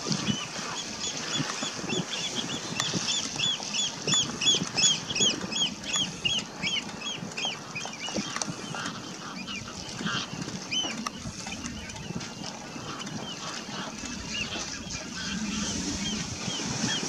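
Black-necked grebes calling: a rapid run of short, rising-and-falling whistled notes, about four a second, that thins out after about six seconds into scattered groups of notes.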